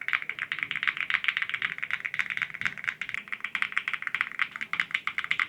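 Rapid, continuous typing on a custom mechanical keyboard with an ergonomic layout and a metal case: a fast, even stream of key clicks as it is played for a sound test.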